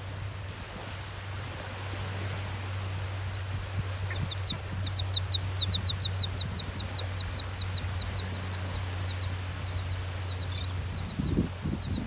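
A resting beach flock of skimmers, terns and gulls calling: a fast series of short, high, chattering notes, several a second, starting about three seconds in and going on until near the end. Under it runs a steady low rumble, with a few low thumps near the end.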